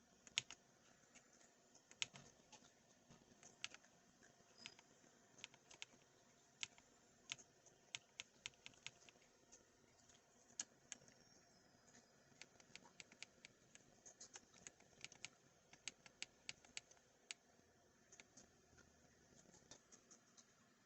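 Keys of a KiiBOOM Phantom 68 mechanical keyboard being pressed: faint, irregular clicks, some coming in quick runs.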